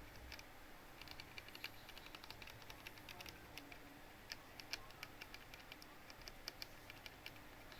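Typing on a Dactyl Manuform 5x6 split keyboard with Kailh Box Noble Red linear switches: a quick, uneven run of faint key clacks.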